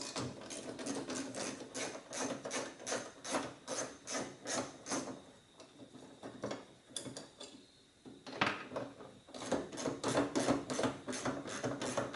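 Ratchet wrench with a 10 mm socket clicking steadily in quick strokes, about three to four clicks a second, as bolts are turned out. There is a short lull about halfway through, then the clicking resumes.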